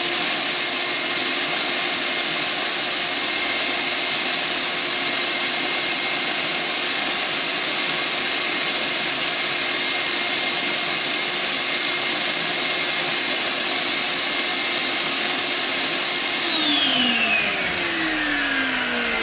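Shop vacuum running with a steady high motor whine, sucking metal chips out of freshly machined intake valve guide bores in a cylinder head. About three seconds before the end it is switched off, and its whine slides down as the motor spins down.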